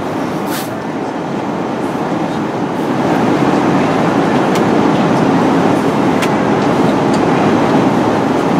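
Steady cabin noise inside an Airbus A330 climbing out after takeoff: engine and airflow noise. It grows a little louder about three seconds in, with a few faint clicks.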